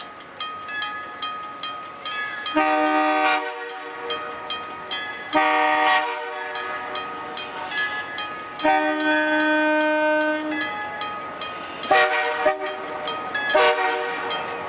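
Ex-CN FP9A diesel locomotive sounding its air horn in five blasts, the longest near the middle, as it comes up to a grade crossing. Under it the crossing's teardrop signal bell clangs in quick, even strokes.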